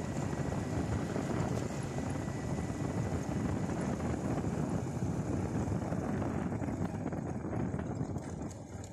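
Motorcycle running at riding speed along a dirt track, its engine rumble mixed with a steady rush of wind on the microphone, dying down near the end.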